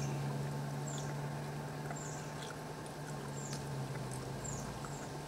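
Steady low hum of an idling vehicle engine, with a high, falling chirp, like a small bird's call, repeating about once a second.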